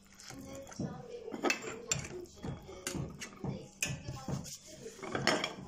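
Metal ladle clinking and knocking against a glass jar and a stainless-steel pot as oily cooked peppers are spooned into the jar. The knocks come in a quick, irregular run, several with a short ring.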